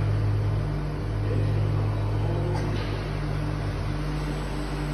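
DMG Mori DMC 80 U duoBLOCK five-axis machining center running, a steady low machine hum as its milling head moves, with a faint click about two and a half seconds in.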